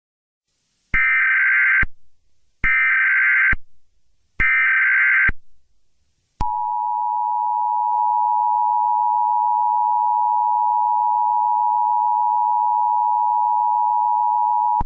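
Emergency Alert System SAME header: three bursts of digital data tones, each about a second long with short gaps between them. These are followed by the two-tone attention signal, a steady dual tone held for about eight seconds that marks the start of an emergency alert broadcast.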